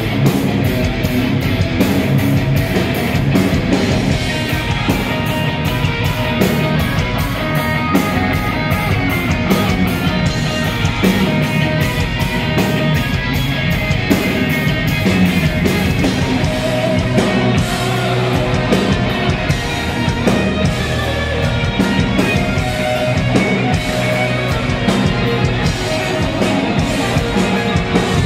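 Live heavy metal band playing loud: distorted electric guitars over fast, driving drums.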